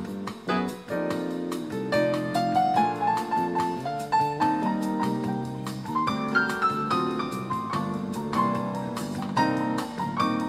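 Background piano music: a melody of separate notes stepping upward over held chords.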